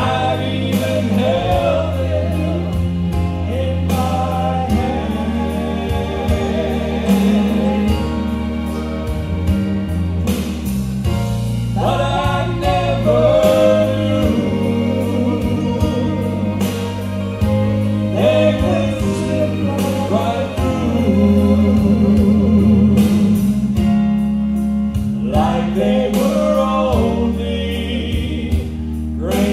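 A man and a woman singing a gospel song as a duet into microphones, over instrumental accompaniment with sustained bass notes.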